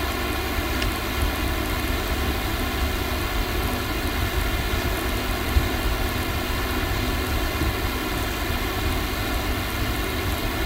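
Steady background hiss and low rumble with a faint electrical hum running through it: recording noise from the microphone and room, with no distinct event.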